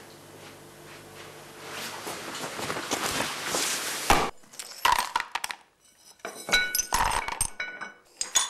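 Broken crockery shards clinking together as they are picked up off the floor: a string of short, light clinks in the second half. Before them, a low hum and a rising hiss that cuts off suddenly about four seconds in.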